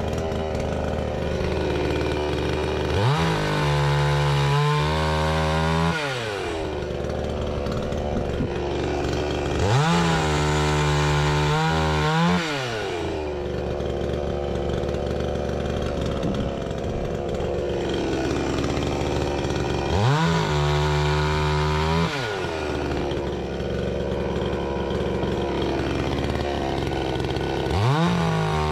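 Two-stroke chainsaw idling, then revved up to full throttle four times, each time for two to three seconds with the engine note sagging and wavering as the chain bites into fruitwood logs, then dropping back to idle.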